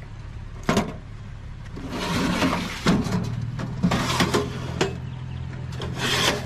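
Hands rummaging through the contents of a discarded metal-bodied item: a series of short knocks, scrapes and rattles. A steady low hum comes in about three seconds in.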